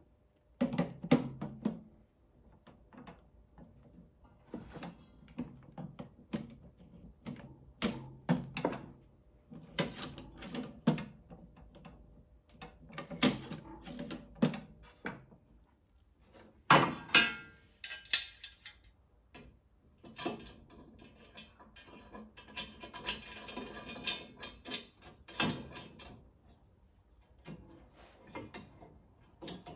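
Irregular knocks, clacks and thuds of table-saw parts being handled and fitted during assembly, with a stretch of rattling about two-thirds through.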